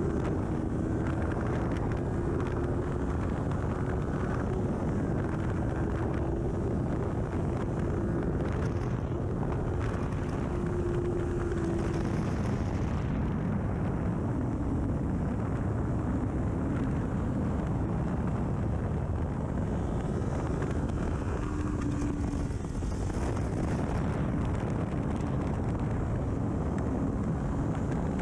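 Kawasaki Ninja 400 parallel-twin engine with an aftermarket full exhaust running under load at speed on track, largely buried under heavy wind noise on the microphone. The engine note holds steady for roughly the first twelve seconds, then fades under the wind and returns briefly later, and again near the end.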